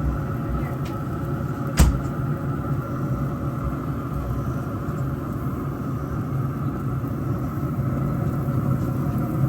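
Steady low mechanical hum, with a single sharp knock about two seconds in.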